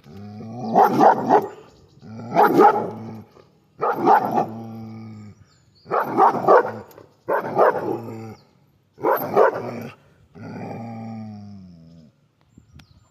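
German shepherd vocalizing in a run of about seven loud, drawn-out calls, each about a second long, several sliding down in pitch at the end.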